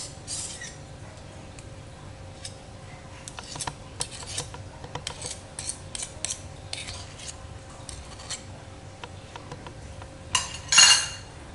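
Metal teaspoon tapping and scraping against a glass mixing bowl as thick SP cake emulsifier is worked off it: a run of light clinks, with a louder clatter near the end.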